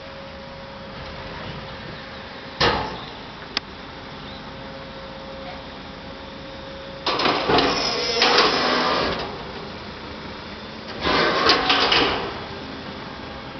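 Lift-and-tip device for large wheeled waste containers running with a steady motor hum as it raises and tips the container. There is a sharp clunk about two and a half seconds in. Two loud clattering rattles come in the middle and near the end while the container is at full tip, after the hum has stopped.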